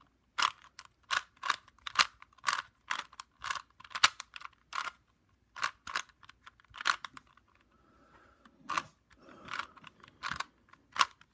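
A Rubik's Cube being twisted quickly by hand: a rapid run of plastic clicks and scrapes as the layers turn, about three a second, with a short pause near the end. These are the final turns that complete the solve.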